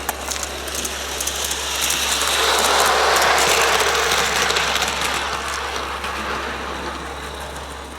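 A 16mm-scale Roundhouse live steam garden locomotive running past on the track: a hissing rush of steam and running gear that swells to its loudest about three seconds in and then fades as it moves away, with light rapid clicking from the wheels and motion.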